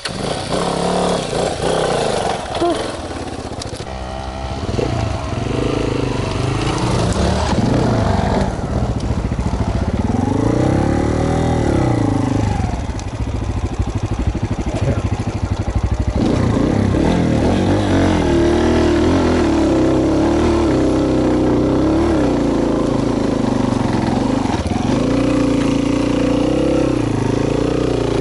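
Off-road trail motorcycle engine running close by, revving up and falling back in a few swells through the first half, then running steadily with small changes in pitch.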